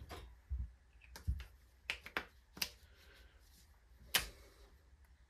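About six separate sharp clicks and light knocks at irregular spacing, the loudest about four seconds in: an old spark plug and its lead being handled on a small engine while setting up a spark test.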